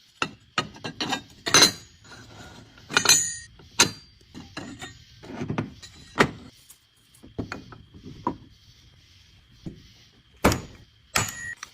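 Metal tools and parts knocking and clinking at irregular intervals, several strikes ringing briefly, as work goes on at an automobile oil pump, over a faint steady high whine.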